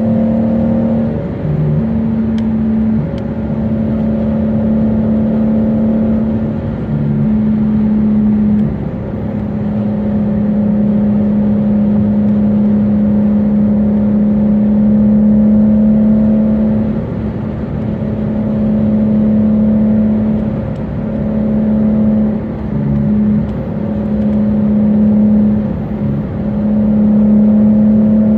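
Dodge Charger V6 and its tyres heard from inside the cabin while cruising at highway speed: a steady drone with a strong low hum that breaks off briefly a few times.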